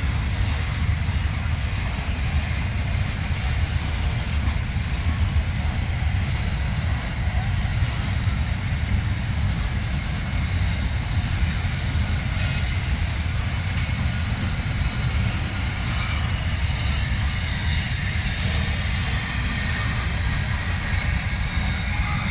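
Freight cars of a long train rolling slowly past over a grade crossing: a steady rumble of wheels on rail with no pauses.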